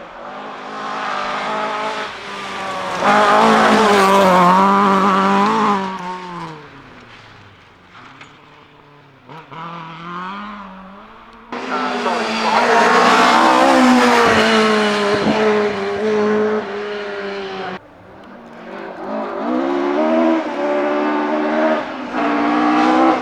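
Ford Escort Mk2 rally cars driven hard on a stage, the engine note rising and falling with throttle and gear changes as each car passes. The sound is three separate passes, each cut off suddenly, the loudest around 3–6 s and 12–16 s in.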